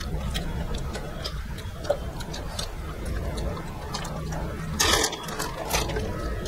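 Close-up mouth sounds of eating rice and fish curry by hand: wet chewing and lip-smacking, heard as many small scattered clicks over a low steady hum, with one louder brief noisy sound about five seconds in.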